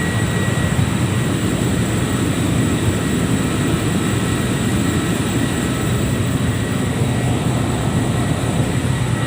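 Steady loud drone of running power-plant machinery, heaviest in the low range, with faint steady high-pitched whines over it.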